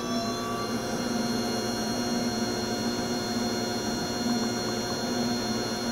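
American Eagle AE-10DCA 10-quart tabletop planetary mixer running at a steady speed, its 7/8 HP DC motor and gear transmission giving an even hum with a higher whine over it.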